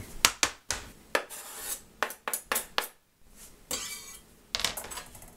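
Metal kitchen utensils clinking and scraping against a garlic press and a glass bowl: a string of sharp, uneven taps and clicks with short scrapes between them, as minced garlic is added to a bowl of tomato sauce.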